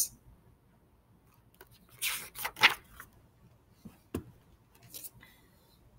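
Pages of a graphic novel being turned: a few quick paper rustles about two seconds in, then a light tap and faint handling of the book.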